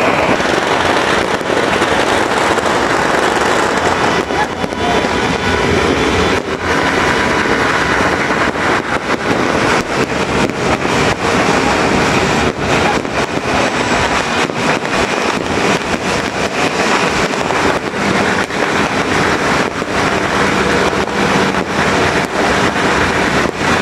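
Many fireworks and firecrackers going off at once: a continuous din of crackling with many sharp bangs.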